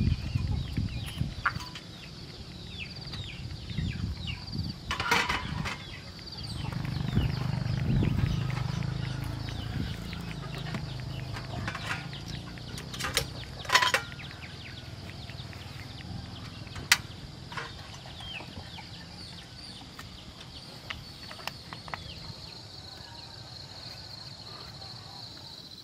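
Early-morning outdoor ambience of small birds chirping with quick high calls, busiest in the first few seconds. A low rumble swells up a few seconds in and slowly fades, and a few sharp clicks and knocks stand out, loudest about a third and halfway through.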